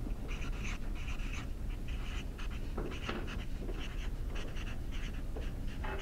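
Felt-tip marker writing on a large taped-up paper sheet: a run of short scratchy strokes as letters are drawn.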